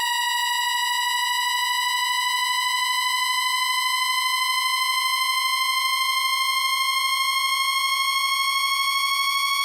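A steady electronic test tone, harsh with many overtones, gliding slowly and evenly upward in pitch.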